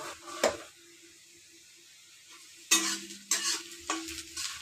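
Metal cookware clattering. There is a clink about half a second in, then a quiet stretch, then several sharp clanks of a kadhai and its metal lid being handled from near the middle on.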